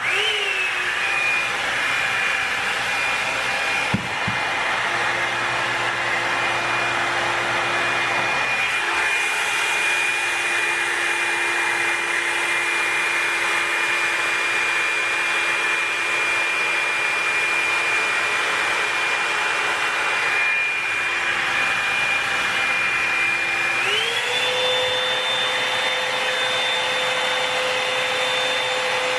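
Revlon One-Step Volumizer hot-air brush dryer switching on and running steadily: a loud rush of air with a motor whine. A small click about four seconds in, and near the end the motor's whine steps up to a higher pitch and stays there.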